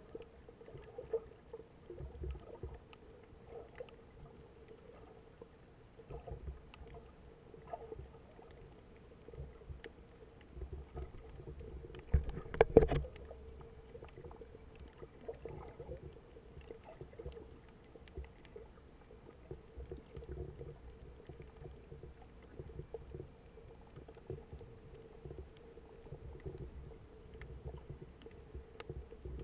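Muffled underwater sound picked up by a camera held beneath the surface while snorkelling: a low rumble of moving water with scattered small knocks and a steady faint hum. A louder rushing burst comes about twelve seconds in.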